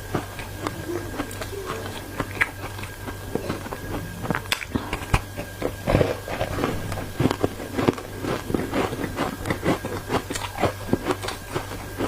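Ice coated in matcha powder being bitten and crunched between the teeth: a run of sharp cracks that grows denser and quicker about four seconds in.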